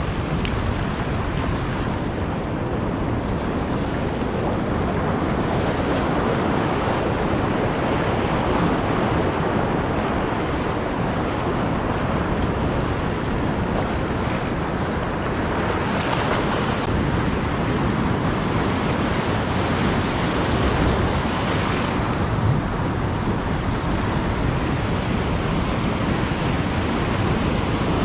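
Ocean surf breaking and washing over the rocks, a steady rush of churning seawater, with wind buffeting the microphone.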